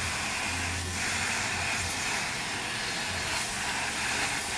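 Heat gun blowing hot air in a steady hiss, preheating an iPad mini's cracked digitizer glass to soften the adhesive before it is pried off.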